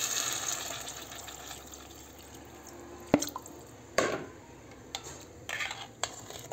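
Water poured from a glass jug into a stainless steel pot of toasted rice, the pour loudest at the start and fading over the first second or two. Then a metal spoon stirring in the pot: a sharp clink about three seconds in, a knock a second later, and a few lighter clinks near the end.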